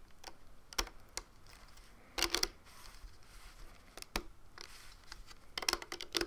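Light plastic clicks and taps as rubber bands are worked off the pegs of a Rainbow Loom with fingers and a plastic hook. A small flurry of clicks comes about two seconds in and another near the end.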